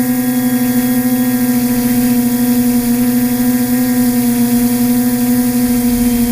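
TBS Discovery quadcopter's four brushless motors driving 10-inch propellers, a steady hum at constant pitch over a rushing whirr, heard from the camera mounted on the craft.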